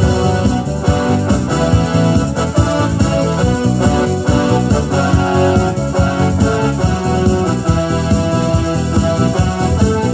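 Electronic keyboard playing a Korean gospel song instrumentally in an organ-like voice, sustained chords and melody over a steady rhythm accompaniment.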